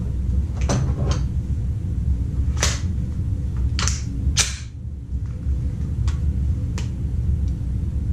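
Several sharp clicks and knocks from a 10mm Roni carbine chassis being picked up from the bench and brought to the shoulder, over a steady low rumble. No shot is fired.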